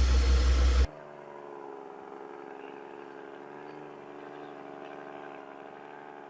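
A loud, deep engine rumble that cuts off abruptly just under a second in, giving way to a quieter, steady engine hum from heavy machinery.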